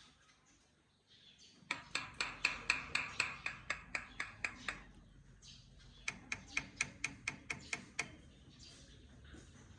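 Common myna calling: a fast run of sharp, repeated notes, about five a second, starting a second or two in, then a second shorter run.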